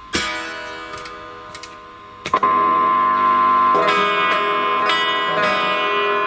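Guitar chords strummed and left to ring through a Peavey Envoy 110 solid-state combo amp under test. A first strum at the start fades, then a second, louder strum about two seconds later is held at a steady level while the chord changes twice. A steady high tone sits under it.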